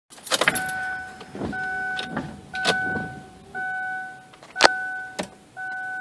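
A 2000–2004 Kia Spectra's dashboard warning chime beeping steadily about once a second, six beeps of one steady note. Sharp clicks and knocks fall among the beeps, the loudest about three quarters of the way through.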